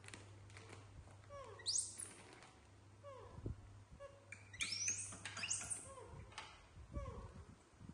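Baby macaques giving short falling coo calls and quick high-pitched squeaks, several in a row between about four and six seconds in, with scattered crinkling clicks from a plastic snack bag being handled.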